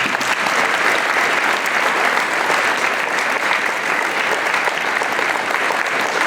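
Audience applauding steadily, many hands clapping in a large hall, beginning suddenly.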